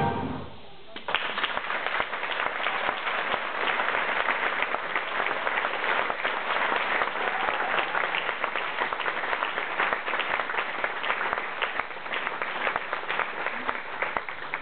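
Audience applauding with steady clapping, starting about a second in as the music dies away.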